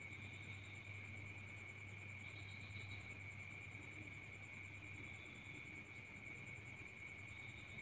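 Faint insect chirring: a high, rapidly pulsing trill and a steady high whine over a low hum.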